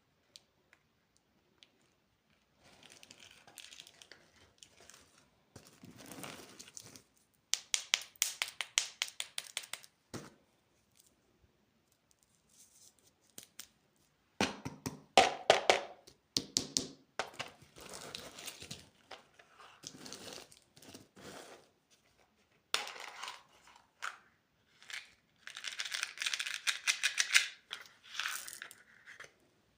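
Plastic candy wrappers crinkling and being torn open in irregular bursts, with runs of quick crackles and short near-silent pauses between.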